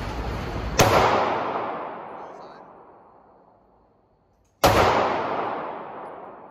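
Two single shots from a Ruger MAX-9 9mm compact pistol on an indoor range, about four seconds apart, each followed by a long echoing decay.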